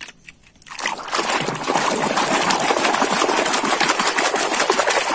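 A muddy plastic toy being swished and scrubbed in a basin of frothy, muddy water: continuous splashing and sloshing that starts about a second in, after a couple of light plastic knocks.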